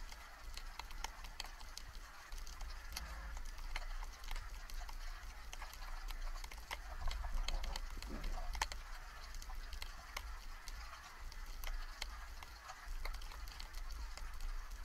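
Underwater ambience picked up by an action camera in its waterproof housing during a breath-hold dive in shallow water: a steady low rumble of moving water with a scatter of sharp clicks and crackles, a little louder about seven to eight seconds in.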